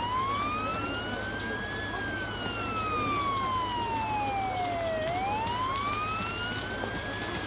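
Emergency vehicle siren wailing in slow cycles: a rise of about two seconds, a longer fall, then a second rise near the end. It sounds over a low steady hum.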